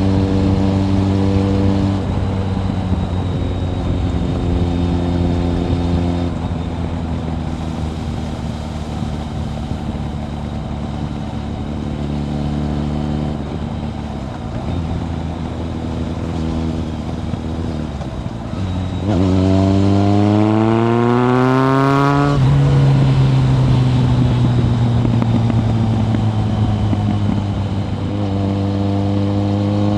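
Kawasaki ZRX1100's inline-four engine through a Yoshimura exhaust, heard from onboard, cruising at steady revs with a few small changes in pitch. About nineteen seconds in it is opened up hard and the revs climb sharply for about three seconds. An upshift then drops them and they ease off slowly.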